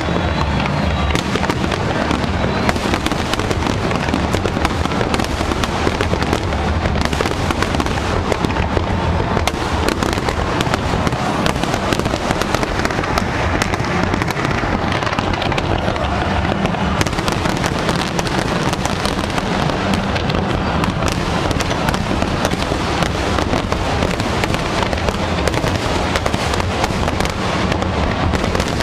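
A large fireworks display, with many overlapping bursts and crackles running on without a break.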